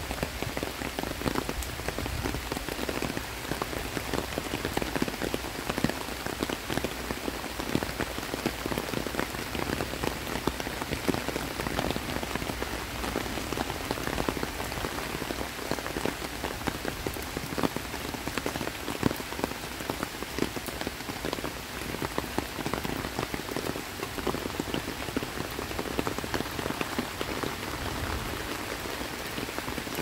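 Heavy tropical rain falling steadily on dense foliage and a wet path: an even hiss made of countless small drop impacts.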